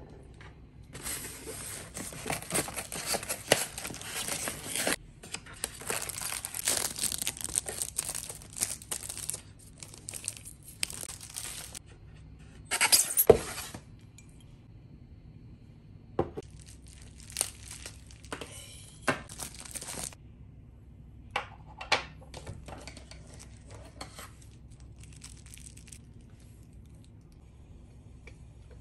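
Plastic packaging and bubble wrap being torn open and crinkled as ceramic mugs and their accessories are unwrapped, in long stretches of rustling through the first twenty seconds with a loud burst about thirteen seconds in. After that come scattered short taps and clicks of the ceramic pieces being handled.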